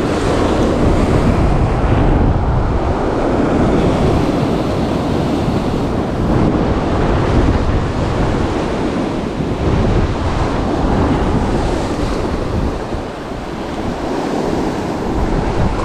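Ocean surf breaking and washing over rocks in a steady, swelling rush, with wind buffeting the microphone.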